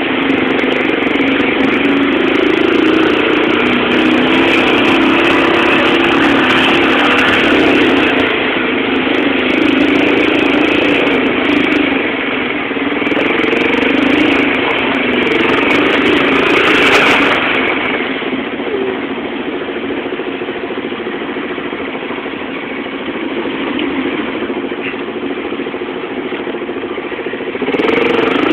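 ATV (four-wheeler) engine running, its pitch wavering up and down with the throttle. It drops somewhat in level about two-thirds of the way through and picks up again near the end.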